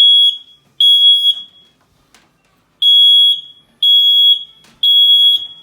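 Kidde i9010 smoke alarm sounding under its test button: loud, high-pitched half-second beeps in the three-beep pattern, with a pause of about a second and a half before the next set of three. It sounding on test shows the alarm works.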